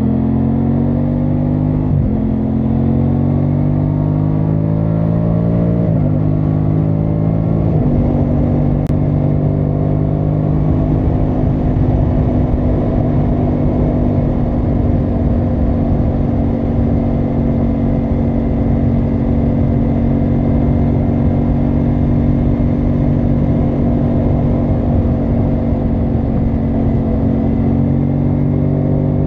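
Aprilia Tuono 660 Factory's parallel-twin engine pulling through the gears: the note climbs, drops sharply at upshifts about two, six and eight seconds in, then holds at steady cruising revs.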